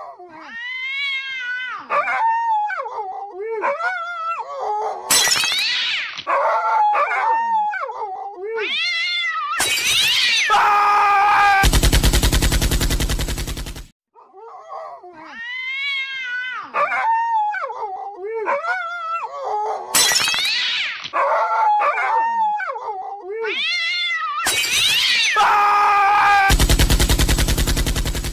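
Cats meowing and caterwauling in rising and falling calls, broken by sudden noisy bursts and a long harsh buzzing stretch. The same sequence of about fourteen seconds plays twice over.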